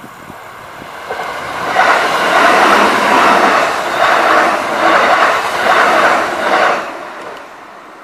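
Kintetsu Osaka Line electric train passing close by over a level crossing: a rushing clatter of wheels on rails that builds up, swells and dips several times, then fades away near the end.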